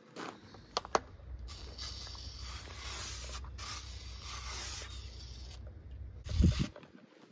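A spray or air jet hissing for about four seconds over a low hum, after two sharp clicks, with a loud thud near the end.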